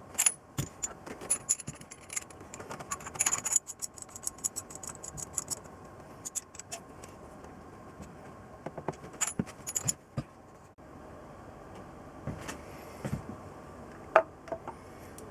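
Small metal parts and hand tools clinking, tapping and jingling in irregular bursts of clicks, with a single sharp knock near the end.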